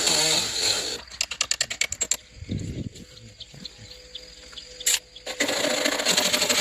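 A small engine-driven power tool running, then winding down with a rapid run of ticks about a second in. A low thump and a click follow, and the tool runs again near the end.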